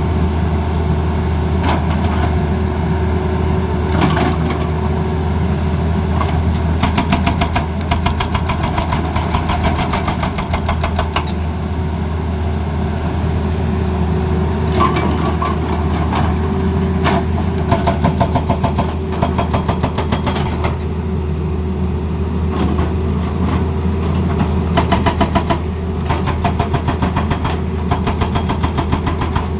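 Diesel engine of a Tata Hitachi Zaxis excavator running steadily, broken by several short spells of fast, even hammering from a hydraulic breaker, each lasting a second or two.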